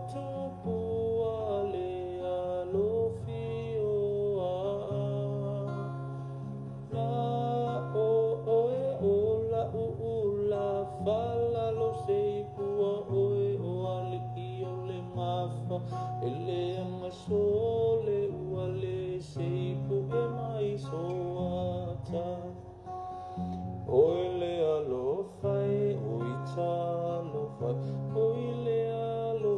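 A man singing a slow Samoan song to acoustic guitar, with held bass notes underneath.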